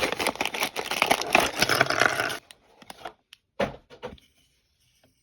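Loud crinkling and crackling, like a plastic bag or packaging being handled, for about two seconds before it cuts off suddenly. A sharp knock or two follows about a second later.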